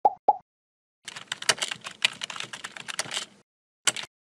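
Sound effects for an animated intro: two short pitched pops at the start, then about two and a half seconds of rapid computer-keyboard typing clicks, then one brief noisy burst near the end.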